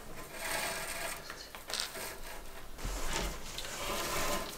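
A thin cord being pulled and wound around thin metal rods, rubbing and scraping against them in several short rustling strokes.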